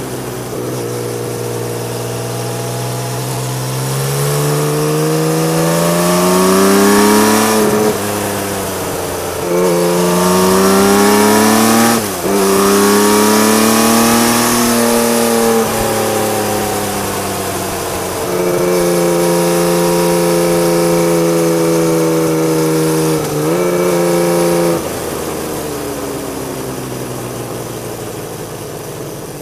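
Honda CBX1000's air-cooled inline six-cylinder engine through a loud aftermarket Marving exhaust, ridden under load. It revs up with two quick gear changes about 8 and 12 seconds in, eases off, holds a steady note, and then falls away as the throttle rolls off near the end.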